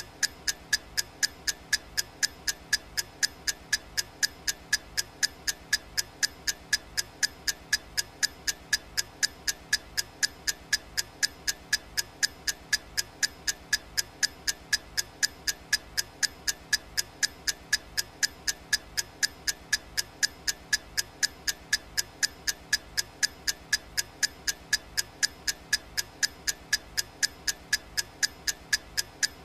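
Clock ticking sound effect: sharp, even ticks at a steady, fast rhythm that does not change.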